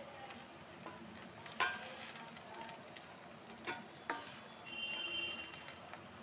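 A wooden spatula stirs and scrapes radish and radish-leaf bhujiya around a black wok over a faint sizzle, with a few sharper scrapes about one and a half and four seconds in.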